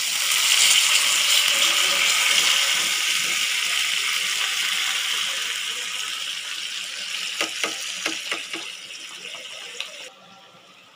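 Hot oil sizzling in a frying pan of whole spices and chopped tomatoes, loud at first and slowly dying down. A few knocks against the pan come near the end, then the sizzle stops abruptly.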